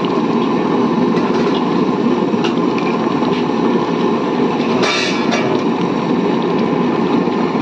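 Steady rushing roar of a pressure cooker of pork tail and beans boiling hard over the stove flame, with a brief louder hiss about five seconds in.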